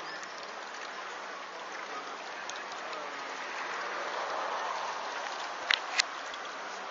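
Small waves lapping against a lakeside quay wall: a steady, rain-like rushing hiss, with two sharp clicks close together near the end.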